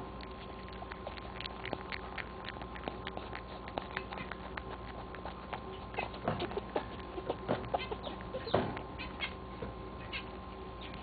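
Rabbit chewing and smacking on a piece of banana right at the microphone: a run of small sharp clicks that gets busier about halfway through, over a steady electrical hum.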